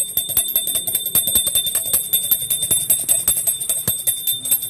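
A brass puja hand bell rung continuously, its clapper striking rapidly and the bell ringing with steady high tones, as is done when pongal is offered.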